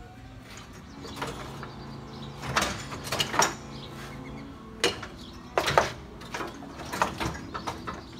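Scattered knocks and clunks of metal and plastic as a pickup truck's chrome front bumper is handled and worked loose from its mounts, several in quick clusters.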